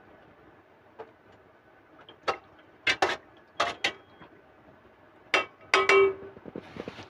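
A spoon clinking against the side of a metal cooking pot while the broth is stirred: a run of sharp, irregular clinks, some ringing briefly, the loudest just before the end.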